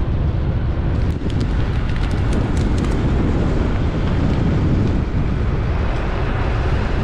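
Car driving on a dirt road: a steady low rumble of tyres, engine and wind, with a few faint ticks about one to three seconds in.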